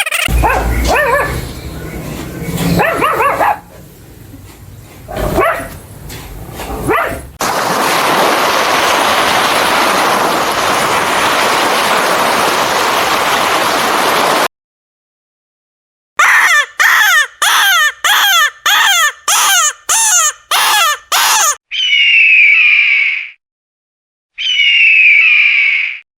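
A run of different animal calls in separate clips. A mixed stretch comes first, then a steady hiss for several seconds and a short gap. After that come about ten short calls, each falling in pitch, and two long high calls near the end.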